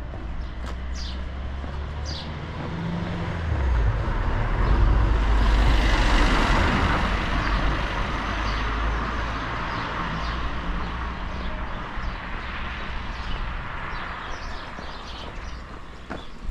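A road vehicle drives past, swelling to its loudest about five to seven seconds in and then fading slowly away, over a steady low rumble of wind on the microphone.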